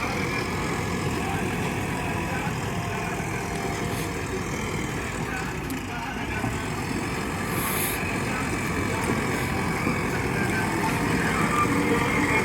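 JCB 3DX backhoe loader's diesel engine running steadily under work, dipping slightly about halfway through and rising a little near the end.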